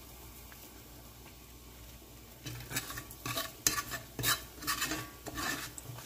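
Metal spoon scraping and stirring seasoned bacon grease in a cast-iron skillet, in quick repeated strokes that start about two and a half seconds in, with the grease sizzling.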